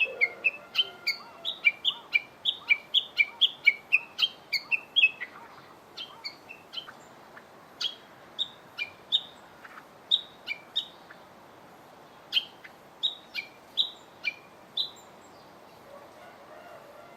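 Wild songbird calling: a fast run of short, sharp chirps, about four a second, slowing after about five seconds to single chirps spaced roughly half a second to a second apart, stopping near the end.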